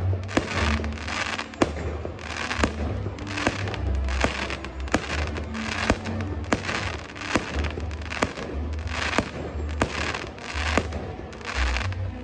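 Fireworks display: sharp bangs about once a second, with crackling hiss between them and deep booms underneath.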